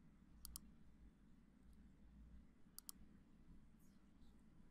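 Faint computer mouse clicks, twice, each a quick press-and-release pair, over near-silent room tone.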